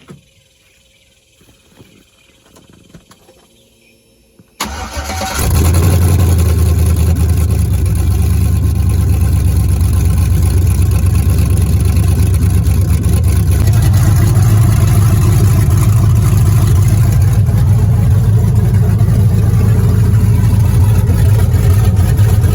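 Pickup truck engine, fitted with new 1 7/8-inch headers, starting about four and a half seconds in and then running loud and steady, its low note settling slightly about two-thirds of the way through.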